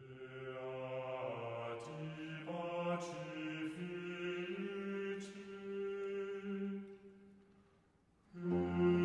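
Slow chant sung by low voices, long held notes that step to a new pitch every second or two, with a few soft hissed consonants. It fades out about eight seconds in, and louder music comes back in just before the end.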